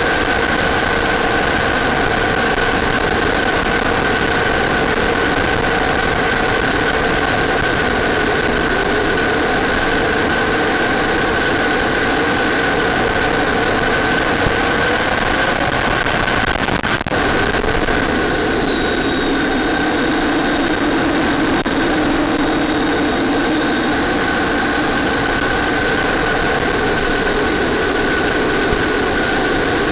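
RC model plane's motor and rushing air heard through its onboard FPV camera microphone: a steady drone with a constant tone, and a higher whine that shifts pitch in small steps as the throttle changes. There is a brief dropout about 17 seconds in.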